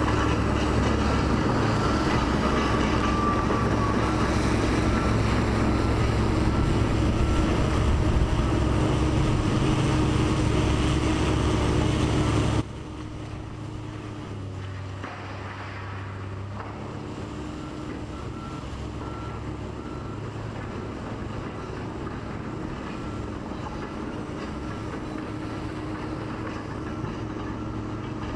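Steady mechanical drone of heavy machinery engines with a constant whine. It drops sharply in level about twelve seconds in and carries on quieter.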